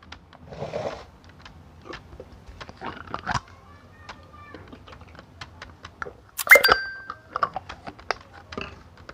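Computer keyboard typing: irregular clicking keys, with bag-packing rustle. About six and a half seconds in comes one loud sharp clack with a brief ring.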